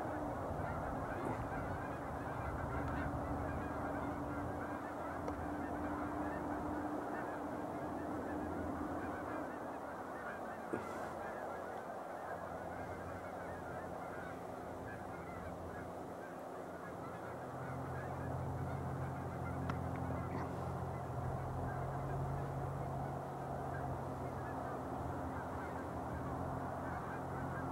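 A large flock of Canada geese honking continuously, with many birds calling over one another.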